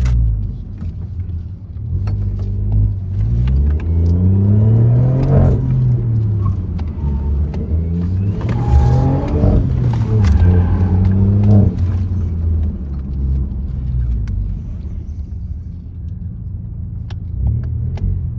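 BMW F20's turbocharged B38 three-cylinder engine, fitted with a downpipe, accelerating and easing off again and again under hard driving. Its pitch rises and falls several times.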